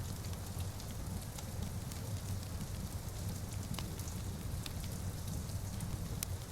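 Steady rain on windows over a crackling wood fire in a fireplace, with a low rumble and a sharp pop every second or so.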